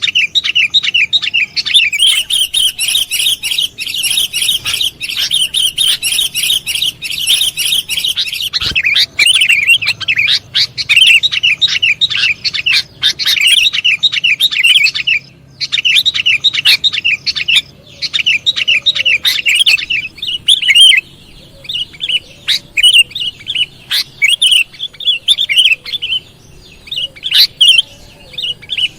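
Sooty-headed bulbuls (kutilang) chirping in rapid, dense runs: a bulbul lure call (pikatan) for drawing in wild birds. There are short pauses about 15 and 21 seconds in.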